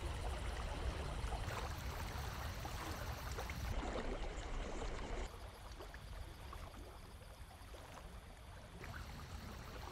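Rushing water of a shallow, rocky river running over stones in rapids, a steady hiss and splash, dropping to a quieter hush a little over halfway through.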